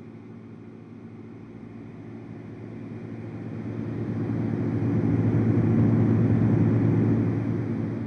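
LectroFan noise machine playing deep brown noise close to a microphone. It swells from about three seconds in, is loudest around six seconds, and then eases off as the machine is brought nearer the mic and drawn back in a proximity test.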